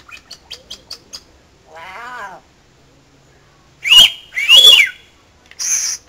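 African grey parrot vocalizing: a quick run of sharp clicks, a short wavering call, then two loud rising-and-falling screeches about four seconds in, and a brief hiss near the end.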